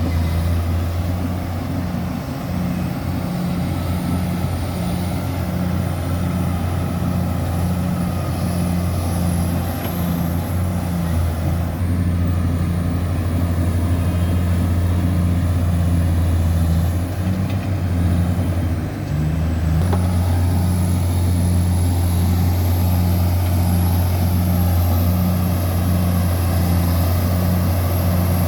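Bulldozer's diesel engine running steadily with a deep rumble and a thin high whine that drifts up and down in pitch. The engine note sags briefly about two-thirds of the way through, then picks up again.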